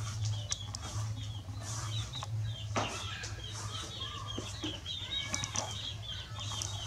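Birds chirping, a quick string of many short, high chirps, over a steady low hum.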